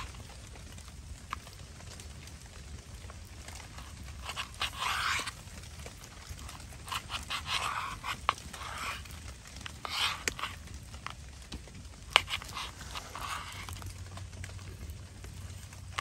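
Knife cutting raw beef into cubes on a plastic cutting board: a few short rasping strokes of about a second each, with scattered sharp taps of the blade.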